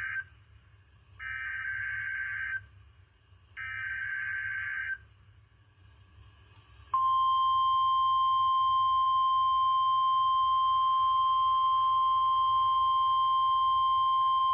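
Specific Area Message Encoding (SAME) digital header of an NOAA Weather Radio test: the tail of one burst, then two more short warbling data bursts about a second and a half apart. About 7 s in, the steady 1050 Hz NOAA Weather Radio warning alarm tone starts and holds.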